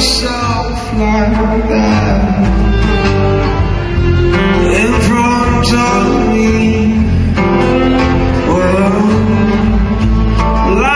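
Live music: a man singing into a microphone over acoustic guitar.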